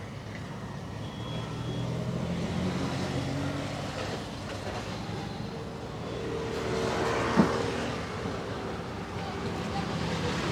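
Roadside traffic noise: a steady engine hum with a vehicle swelling past about seven seconds in. A single sharp crack rings out at its loudest point.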